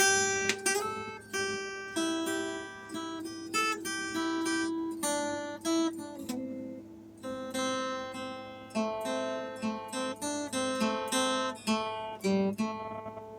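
Background music: acoustic guitar playing a melody of single plucked notes, each ringing and fading.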